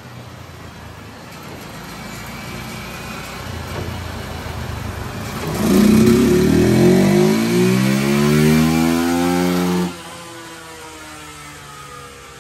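Carbureted Honda 150's single-cylinder four-stroke engine making a full-throttle dynamometer pull through its stock exhaust. The revs build gently at first, then climb steadily and loud for about four seconds. The throttle is shut suddenly near the end, and the engine and roller wind down.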